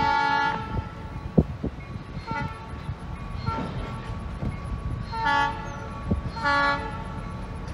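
Freight train's air horn sounding a series of short blasts over the low rumble of the train moving over the crossing. One blast ends in the first second, two fainter ones follow, then two louder half-second blasts. There are a couple of sharp knocks in between.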